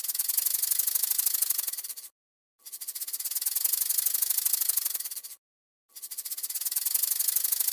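Rattlesnake's tail rattle buzzing, a fast dry rattle in long bursts that break off for about half a second twice, about two seconds in and again about five seconds in.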